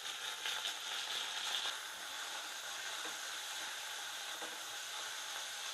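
Shredded chicken sizzling as it fries in hot sesame oil with curry leaves in a kadai, stirred with a wooden spatula. The sizzle is strongest in the first couple of seconds, then settles to a steady hiss.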